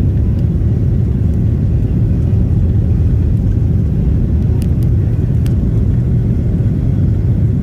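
Steady low rumble inside the cabin of a Boeing 737-800 climbing after takeoff: its CFM56 engines at climb power and the rush of air along the fuselage. A few faint clicks about five seconds in.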